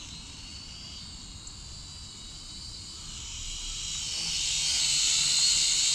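Small AVIALOGIC H22 quadcopter's propellers whining, a high steady whine of several close tones, growing louder through the second half.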